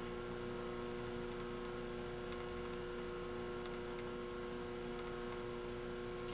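Steady electrical hum of a few tones over a faint hiss: the recording's background noise, with no other sound.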